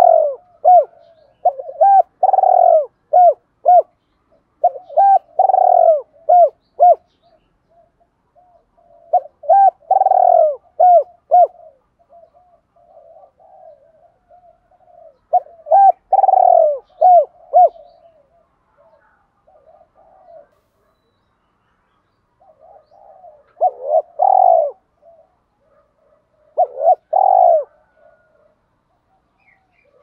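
Spotted dove cooing: loud phrases of several arched coos repeated every few seconds, with softer coos between them and two shorter phrases near the end. These are the decoy calls and challenge coos that dove keepers use to provoke rival doves.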